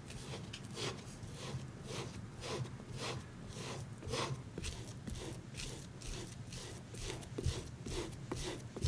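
Wooden spatula rubbing steamed sweet potato through a fine mesh sieve, a soft scraping swish with each stroke, about two strokes a second.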